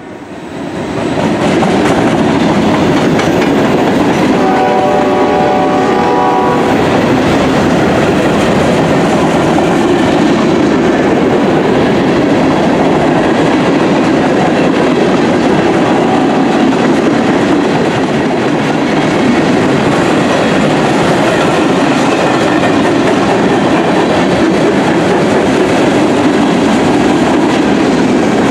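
Freight train cars rolling past at speed: a steady rumble with the clickety-clack of wheels over the rail joints. A train horn sounds briefly about five seconds in.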